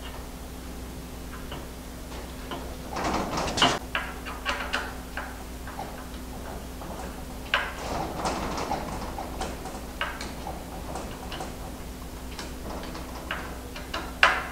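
Scattered light clicks and small metal knocks from hands turning an eccentric locking collar to seat it on the shaft of a NEMA 34 motor mount, over a steady low hum. The clicks come in clusters a few seconds apart.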